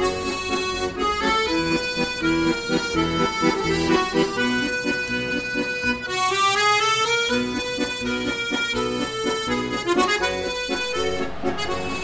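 Background instrumental music: a melody over a steady, bouncing rhythmic accompaniment.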